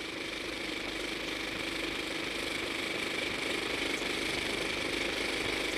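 Steady mechanical whir of a film camera's motor running during a take, growing slightly louder.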